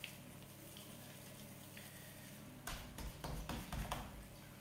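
Hands patting and pressing a ball of corn-flour dough flat on a plastic sheet: a quick run of pats beginning a little over halfway through.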